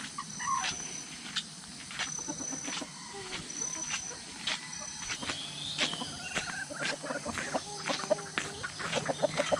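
Free-range chickens clucking softly as they forage, among short bird chirps and a short high call repeating about once a second.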